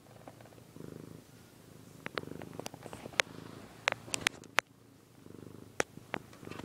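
Domestic cat purring close to the microphone, the purr swelling and fading in waves with its breathing. Sharp clicks come through scattered over the purr, several of them louder than it.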